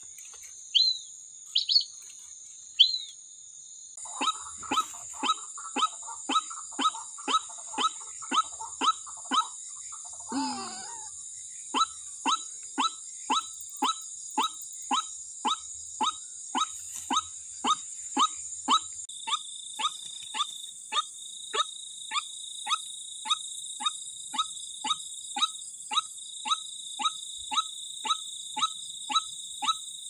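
White-breasted waterhen (ruak-ruak) calling: a short, sharp, clucking note repeated steadily about twice a second, from a few seconds in. One lower, falling cry comes about ten seconds in.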